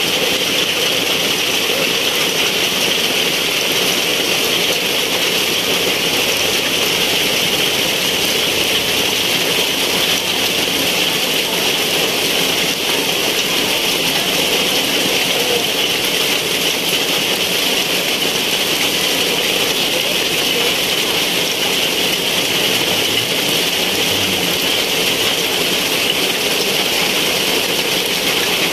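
Heavy rain pouring down steadily onto wet paving and tabletops, a loud, even hiss with no let-up.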